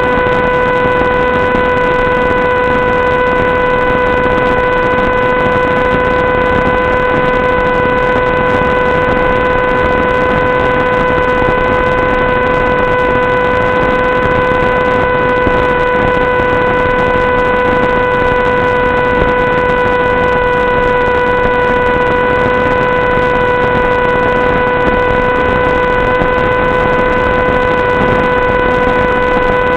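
Steady electronic buzz at one unchanging pitch with its overtones over a hiss, the audio noise of an analog 5.8 GHz FPV video link recorded by the receiver. It does not rise, fall or break.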